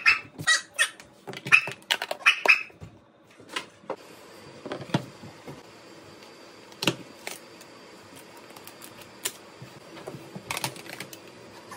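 Kitchen handling clatter: a quick run of knocks and taps on the counter and cutting board in the first few seconds, then a few scattered single knocks as tins, packets and a plastic container are picked up and set down, over a faint steady hum.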